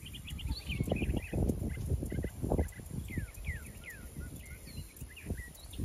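An emu's low, irregular grunting, with small birds chirping and whistling high above it.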